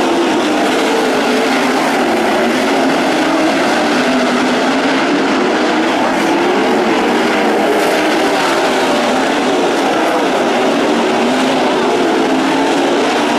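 A pack of ASCS sprint cars' V8 engines racing on a dirt oval, several engines overlapping in a loud continuous drone whose pitch keeps rising and falling as the cars go through the turns and down the straights.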